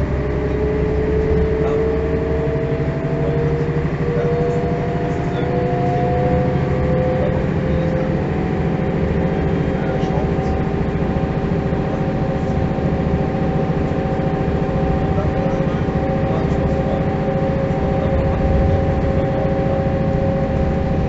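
Interior ride sound of a 1985 Mercedes-Benz O405 city bus: its diesel engine and drivetrain running under way. A whine rises slowly in pitch over the first several seconds as the bus gathers speed, then holds steady.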